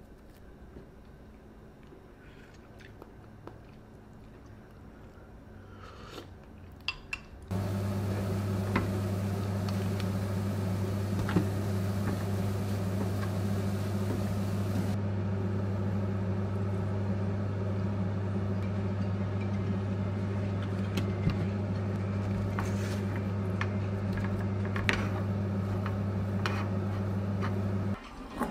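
Shredded vegetables stir-fried in a nonstick frying pan on a gas stove: a spatula scrapes and taps the pan over a steady low hum, which stops abruptly near the end. Before that, a few seconds of quiet with faint clicks of chopsticks at the table.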